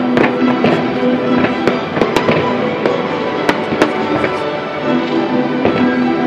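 Aerial fireworks shells bursting in an irregular string of sharp bangs and crackles, heard over music with long held notes.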